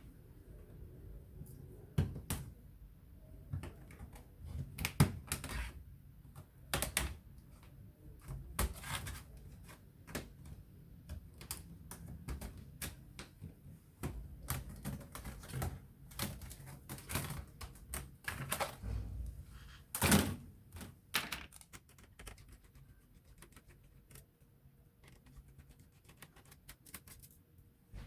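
Irregular clicks, taps and knocks of plastic parts and small tools as a Lenovo IdeaPad 300 laptop is taken apart by hand, with sharper knocks about five and twenty seconds in.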